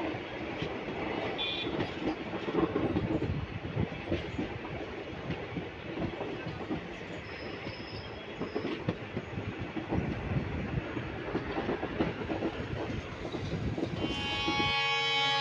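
A Maharashtra Express passenger coach running along the track, heard from aboard: a steady rumble with a dense, irregular clatter of wheels over the rails. Music comes in just before the end.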